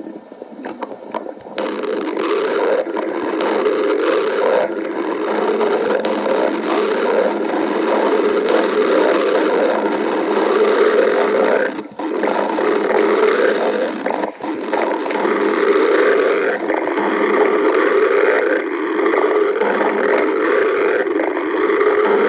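A hungry stomach growling loudly in one long, continuous rumble. It swells up about a second and a half in and breaks off briefly twice about halfway through.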